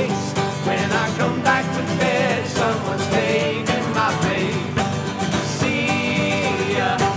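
Live acoustic folk-pop band playing: strummed acoustic guitar and mandolin over a marching drum beat, with several voices singing together.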